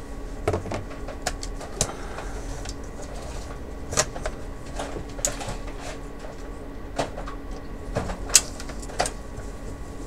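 Irregular sharp clicks and knocks of an LCD monitor's sheet-metal chassis and small parts being handled and fitted during reassembly, about a dozen in all, the loudest near the end, over a steady hum.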